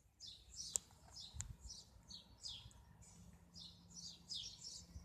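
Small birds chirping over and over in short, high, falling chirps about two a second, with two sharp clicks about a second in.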